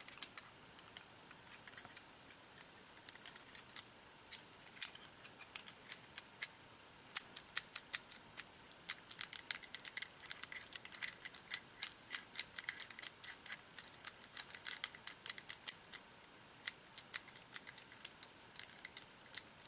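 Dozens of small sharp metallic clicks and taps, scattered at first and then coming thick and fast, as a home-made neodymium-magnet key on a metal plate is shifted and reseated against a Genii magnetic lock in attempts to move its magnetic pins; the lock stays shut.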